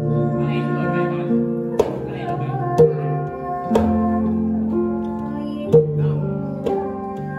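Electronic keyboard music: held chords and melody notes, with a sharp percussion hit every second or two.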